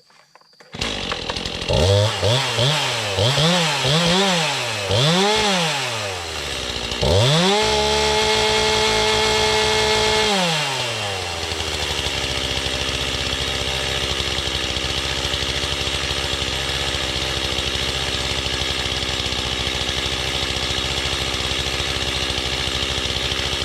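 Gas chainsaw starting about a second in and being revved four times in quick rises and falls. It is then held at full throttle for about three seconds before dropping back to a steady idle. The saw is being run to check a chain that felt tight.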